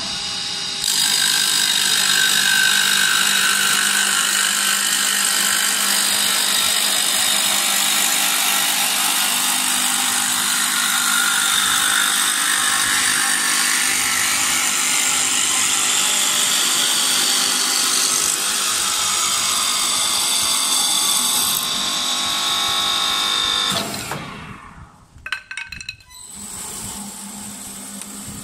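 Automatic back-knife wood lathe cutting a Windsor chair spindle: a loud, steady hiss and whine of the knife shaving the spinning wood for about twenty seconds. The cut then ends abruptly, and after a few clicks the machine runs on more quietly.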